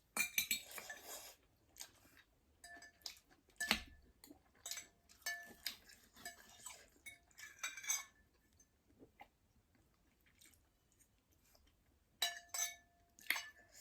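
Close-up eating sounds: chewing, with a spoon and fork clinking against the dishes in scattered short clicks. A quiet spell of a few seconds falls past the middle, and the clinking resumes near the end.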